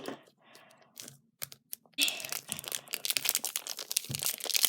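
Plastic packaging being handled and torn open: a few light clicks at first, then dense crinkling and crackling from about halfway.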